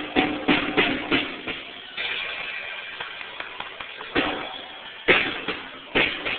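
A toddler hitting an acoustic drum kit with a drumstick: irregular, uneven strikes on the drums, single hits and little clusters with pauses between, each ringing briefly.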